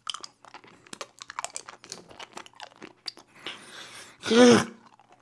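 Super Lemon sour hard candies clicking against teeth and being crunched in the mouth as more are put in, a quick run of small sharp clicks. About four seconds in, a short muffled grunt from the mouth, rising and falling in pitch, is the loudest sound.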